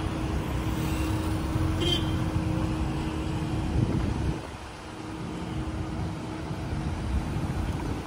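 Passing road traffic: car engines and tyres moving close by, a steady rumble with a hum running under it that drops away about four seconds in.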